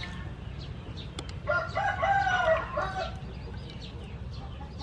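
A rooster crows once, a drawn-out call of about a second and a half that starts about a second and a half in, over a low steady rumble.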